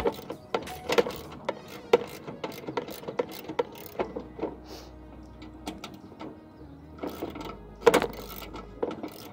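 Irregular clicks, knocks and rattles of plastic and metal as hands work behind a riding mower's dash panel, unclipping and pulling out the wiring harness.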